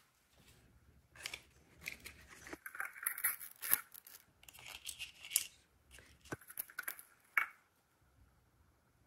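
Crinkling and tearing of the thin printed wrap and small packaging of a toy surprise capsule, coming in irregular bursts as it is peeled and opened by hand, with two sharp clicks near the end.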